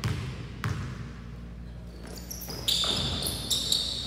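A basketball bounced twice on a hardwood gym floor as the shooter dribbles before a free throw, then high sneaker squeaks on the court from about two-thirds of the way in as players move after the shot.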